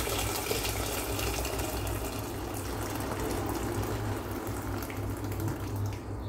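Hot water poured in a steady stream from a plastic pitcher into a rice cooker's metal inner pot, splashing as it fills, stopping near the end.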